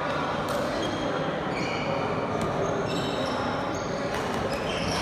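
Badminton rally: several sharp pops of rackets striking the shuttlecock and short squeaks of players' shoes on the court floor, over a steady hubbub that echoes in the hall.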